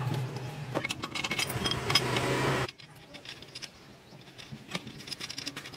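Small metal motorcycle parts clinking and tapping as they are handled and fitted, with a few sharp clicks. Under the first half runs a steady low hum that cuts off abruptly between two and three seconds in, leaving only the faint clicks.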